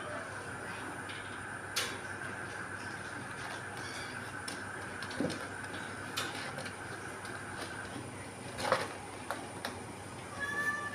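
Steady background hum with a few scattered light clicks and taps; a cat's short call begins near the end.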